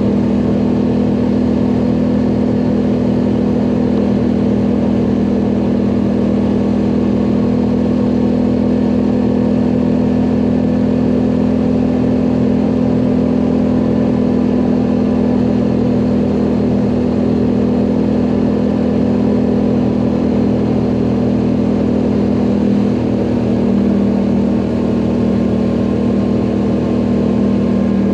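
ATV engine running steadily under load while climbing, its note dropping slightly near the end.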